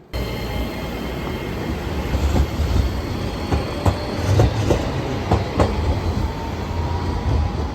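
Train running on rails: a steady low rumble with a scatter of sharp clicks from the wheels, and a faint whine that rises slightly near the end.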